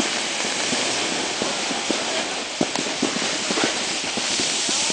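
Snowboard sliding over snow: a steady rushing hiss broken by many small, irregular knocks as the board chatters over bumps.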